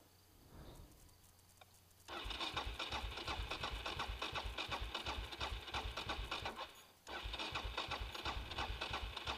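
Suzuki DR650's electric starter cranking the single-cylinder engine in two long bursts, the first about 2 seconds in and the second just after 7 seconds in. The engine turns over rhythmically but does not fire; the bike has a fault that keeps it from starting even with plenty of fuel in the tank.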